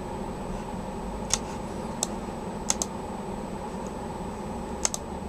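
A few sharp computer-keyboard key clicks, scattered singly and in quick pairs, over a steady room hum with a faint high whine.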